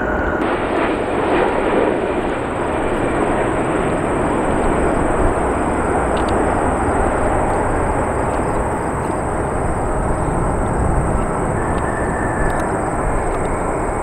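Boeing 787 jet airliner taking off: its engines at takeoff thrust make a loud, steady roar.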